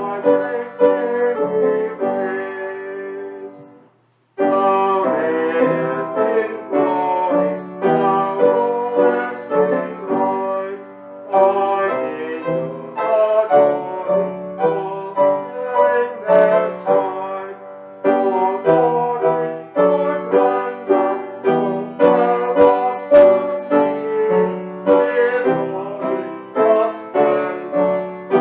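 Piano playing a hymn tune in chords, each note sounding and then fading, with a short break about four seconds in.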